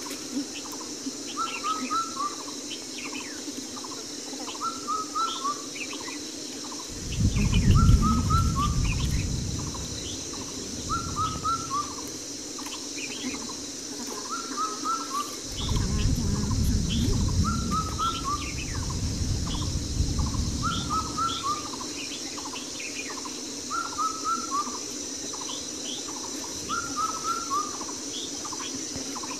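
A bird calling a short phrase of three or four quick notes, repeated about every two seconds, over a steady high hiss. Two spells of low rumbling noise come through, the louder one about a quarter of the way in.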